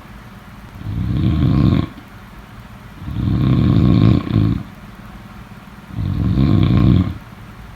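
Snoring: three rough, rattling snores, each about a second long, coming roughly every two and a half to three seconds.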